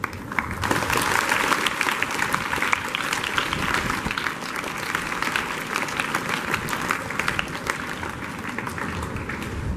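Large audience of schoolchildren applauding, many hands clapping at once. It starts about half a second in and eases off slightly toward the end.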